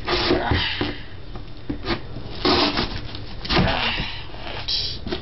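Kitchen knife sawing through the side of a corrugated cardboard box, a string of irregular rasping strokes.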